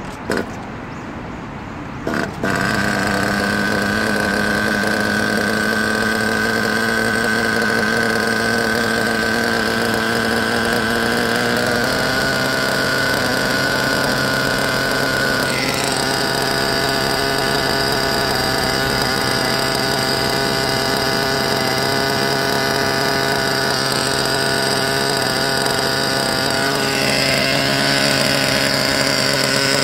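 Small nitro glow-plug engine of a 1/8-scale RC buggy catching about two seconds in and then idling steadily, with a brief blip about halfway through.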